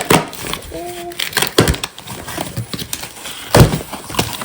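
Gift packaging being opened: crackling and rustling of paper and plastic wrap with scattered clicks, a short hum of a voice about a second in, and a loud thump about three and a half seconds in.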